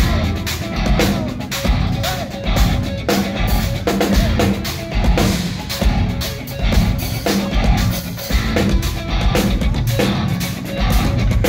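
Live instrumental progressive metal: eight-string electric guitars playing intricate riffs over a full drum kit, with dense kick drum and cymbal hits.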